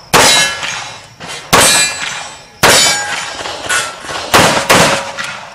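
Semi-automatic pistol firing five shots at an uneven pace, the last two in quick succession, each shot followed by a short ringing decay.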